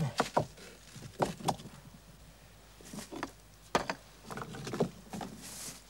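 Irregular knocks and clunks of stone and a wooden lever pole as a large field stone is prised up and blocked from underneath, a few sharp strikes among duller thuds.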